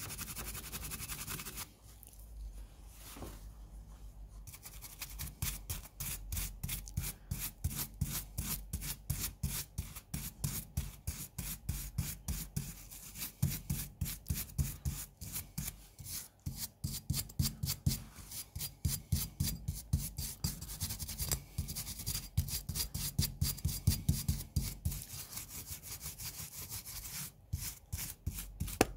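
A small hand brush scrubbing the rusty steel grip frame of a Luger P08 pistol to brush the rust off, in quick back-and-forth strokes, several a second. The scrubbing is light at first and gets going steadily about four and a half seconds in.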